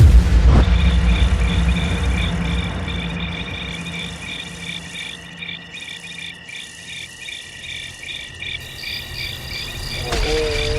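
Cricket chirping sound effect, an even, pulsing chirp: the stock cue for an awkward silence. A low rumble fades away under it over the first few seconds.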